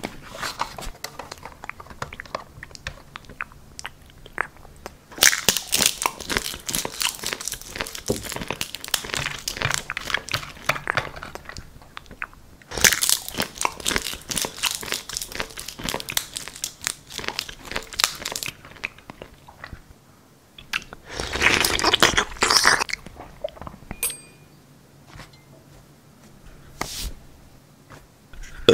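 Close-miked crunching and chewing of something brittle, in several long bouts with quieter crackles between them.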